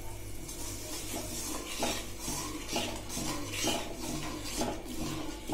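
Perforated steel spoon stirring a thick curry gravy and scraping the sides of a metal kadai, in repeated strokes about twice a second.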